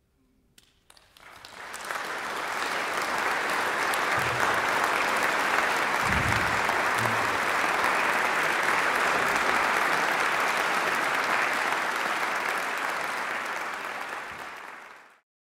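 Concert audience applauding: a few first claps about a second in, swelling within a second to full, steady applause that cuts off suddenly near the end.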